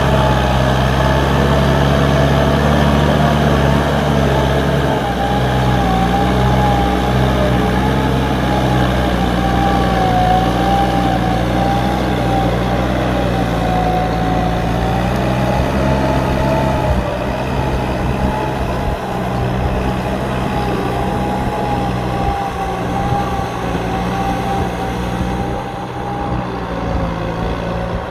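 Kubota M9540 tractor's four-cylinder diesel engine running steadily under load, with a high whine that wavers slightly in pitch. The sound eases a little about two-thirds of the way through.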